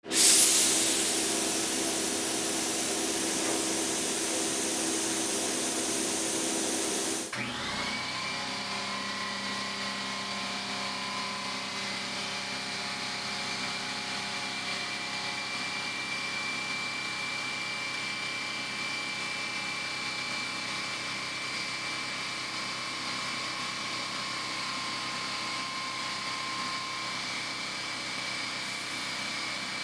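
HVLP spray gun hissing as it sprays unthinned primer at 22 PSI. The air hiss starts suddenly and loud, then about seven seconds in it drops to a quieter, steady hiss with a faint whine.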